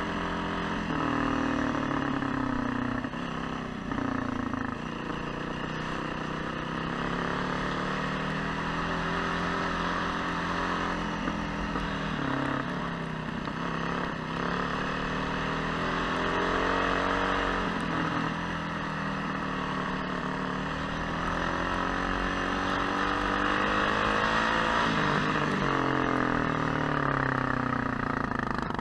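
Trail motorcycle engine running under way, its note rising and falling over and over as the throttle is opened and closed and the gears are changed.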